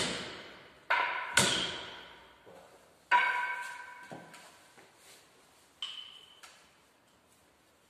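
A long white rod struck in a few sharp blows in the first three seconds, each ringing out with a clear tone that dies away slowly, then two lighter knocks about six seconds in.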